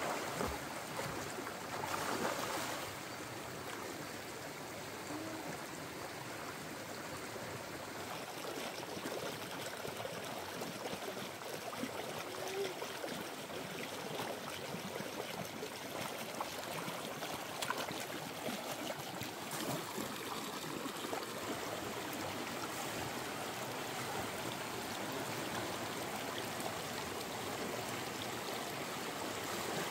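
Shallow stream running over rocks, a steady rush of water, with a burst of splashing from hands in the water about two seconds in.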